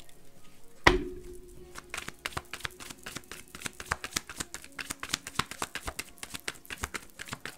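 One sharp thump about a second in, then a deck of tarot cards being shuffled by hand: a fast, uneven run of soft clicks and slaps.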